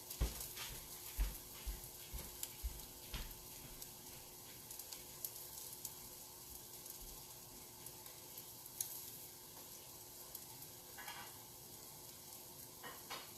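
Egg and buttered bread frying in a pan: a steady faint sizzle with scattered small pops and crackles. A few soft low thumps come in the first few seconds.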